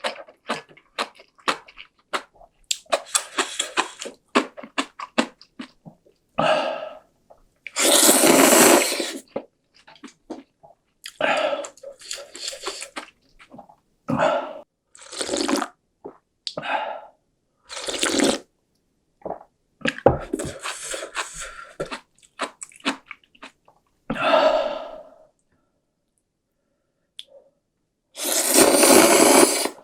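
Close-miked eating of cup ramen: noodles and broth slurped in a few long, loud pulls, between irregular bouts of chewing.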